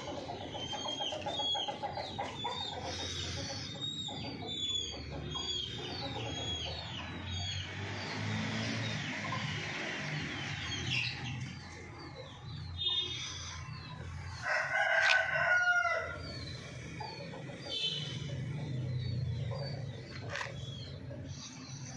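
Chickens clucking and calling, with one loud, drawn-out call about two-thirds of the way through. Many quick, high chirps run through the first half.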